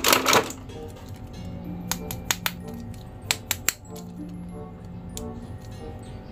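Plastic action figure and packaging being handled: a short crinkle at the start, then several sharp hard-plastic clicks in the middle, over steady background music.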